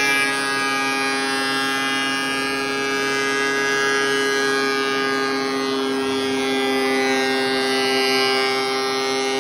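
DeWalt benchtop thickness planer running with a steady whine.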